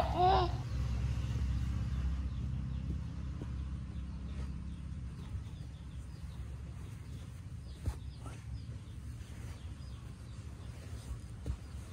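A laugh trails off in the first half-second. After it comes a steady low hum with a few soft taps and rustles as two cats wrestle on bedding.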